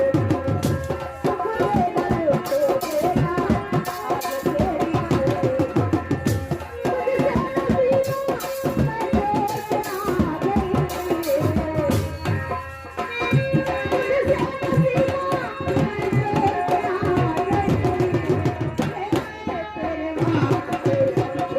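Instrumental folk music: a fast, dense hand-drum rhythm under a wavering melody line, with a brief lull about two-thirds of the way through.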